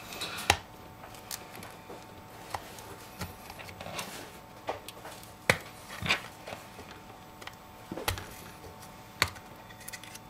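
Irregular small clicks and taps, a few of them sharper, as a thin pry tool works between an iPhone 5's front screen assembly and its aluminium shell, prying the screen loose.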